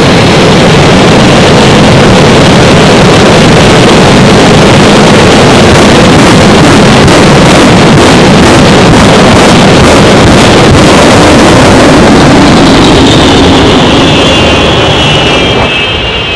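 Jet engines of a jet-powered fire truck running loud and steady, a dense rush with a whine. Between about six and eleven seconds, a run of regular pops, a little over two a second. Near the end the noise eases while several whining tones slide down.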